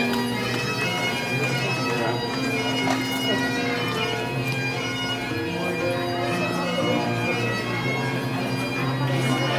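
Bagpipes playing a slow tune of held notes over their steady drones.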